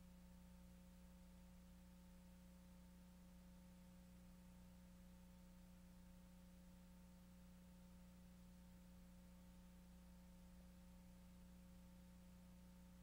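Near silence: only a faint, steady electrical hum and hiss from the recording, with no other sound.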